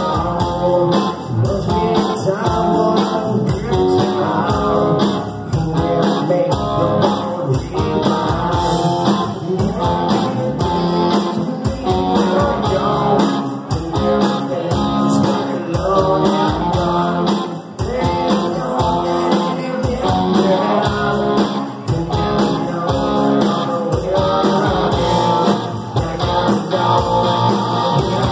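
Live rock band playing loud: electric guitars and a drum kit with a male lead singer, heard through a club's PA.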